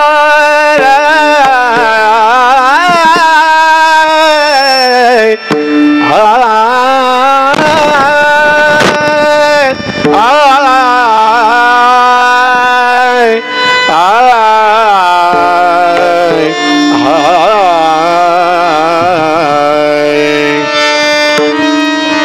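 Devotional kirtan singing: a wordless vocal alaap, the voice sliding and wavering between long held notes, over a steady accompanying drone, with tabla strokes in the middle.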